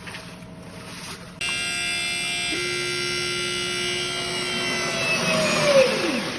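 An electric motor whine with several overtones. It starts abruptly about a second and a half in and steps to a different pitch a second later. Near the end it grows noisier and then drops steeply in pitch as it slows.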